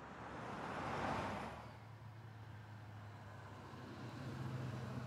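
A car driving past, its road and engine noise swelling to a peak about a second in and then fading, followed by a steady low engine hum that grows slightly louder near the end.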